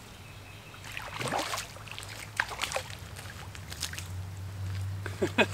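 A hooked freshwater drum splashing at the water's surface as it is reeled in to the bank, with scattered short clicks and rustles of line and rod handling. A low hum comes in about four seconds in.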